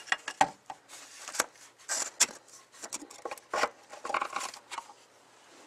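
Irregular clicks and short scrapes as the oil filter housing cap on a 2.4 Ecotec engine is unscrewed and worked free by hand.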